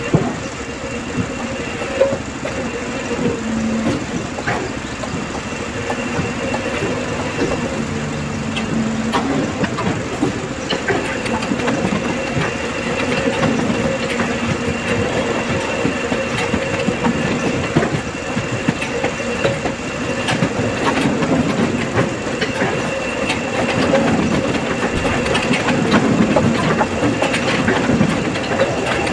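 Industrial guillotine paper cutter running steadily, with irregular clacks as its blade cuts through stacks of paper sheets and the cut blocks are shoved along the metal table.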